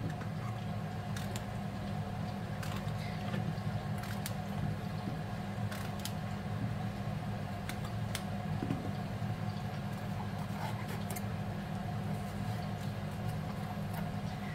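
Knife cutting on a plastic cutting board: sparse, irregular light taps over a steady low hum.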